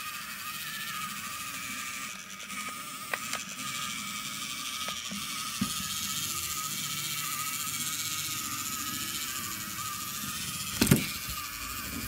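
Small electric gear motor of a metal mini tracked tractor running with a steady whine, its tracks clicking over a wooden dowel ramp and popsicle-stick bridge. A loud knock comes about eleven seconds in.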